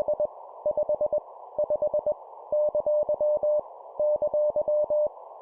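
Morse code (CW) practice sent at 20 words per minute: a single mid-pitched beep keyed in short dots and longer dashes, characters coming in groups with short gaps between, over a steady band of hiss. Each random letter, number or punctuation mark is sent three times.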